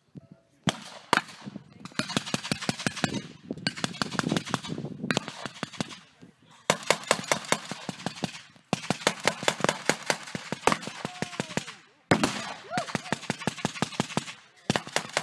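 Blank-firing guns in a mock WWII firefight: long bursts of rapid automatic fire mixed with single shots, echoing across open ground, with short breaks between bursts.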